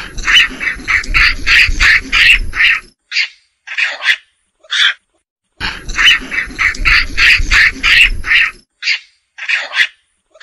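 Macaque calls: a rapid series of short, high-pitched calls, about four a second, over a low rumble, then a few single calls spaced apart. About halfway through the same series comes again, followed by more single calls.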